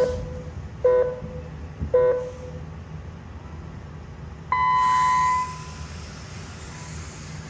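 Electronic race-start signal: three short beeps about a second apart, then one longer, higher beep. With the long beep, a steady high whirr of the Mini-Z radio-controlled cars' electric motors and tyres sets in as the field starts.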